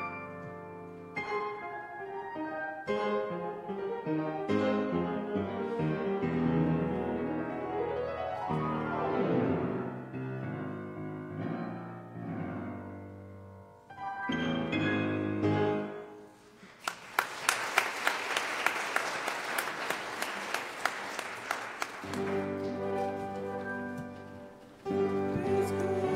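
Grand piano playing, with a fast sweeping run about nine seconds in. From about seventeen to twenty-two seconds a loud rustling noise with sharp clicks covers the playing, then the piano carries on.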